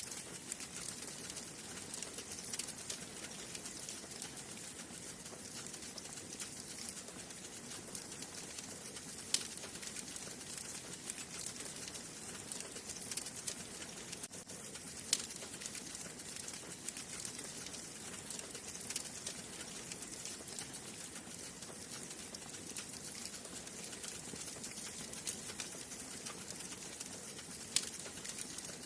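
Wood fire crackling in a fireplace: a soft steady hiss dotted with many small ticks and a few louder, sharper pops, one about a third of the way in, one about halfway, and one near the end.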